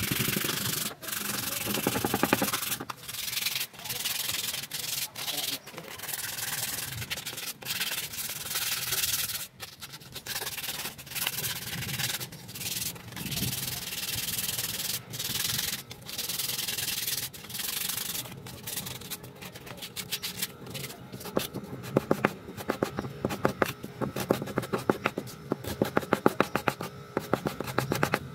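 Sandpaper rubbed by hand over a small piece of laminated scrap wood, a bottle-opener body, in back-and-forth strokes. The strokes become quicker and sharper in the last several seconds.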